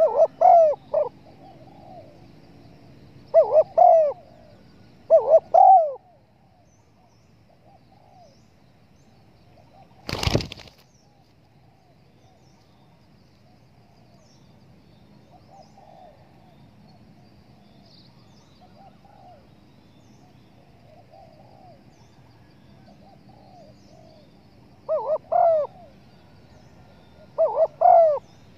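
Spotted dove cooing in short repeated phrases: three loud phrases in the first six seconds and two more near the end, with fainter cooing in between. A single sharp knock comes about ten seconds in.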